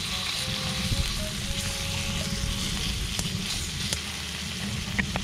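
Thick slices of beef sizzling steadily in beef tallow in a cast-iron skillet, with a few light clicks of a metal fork against the pan.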